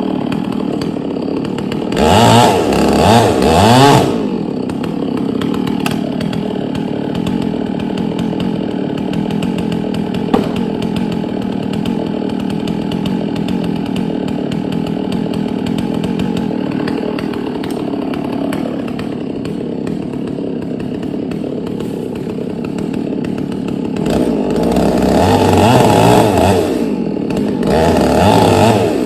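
1997 Dolmar 6800i two-stroke chainsaw with a 24-inch bar running steadily, revved up and down loudly from about two to four seconds in and again for several seconds near the end.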